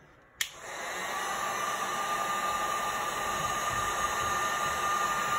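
Handheld heat gun switched on with a click about half a second in, then blowing steadily with a faint fan whine, played over freshly poured resin to draw the air bubbles up.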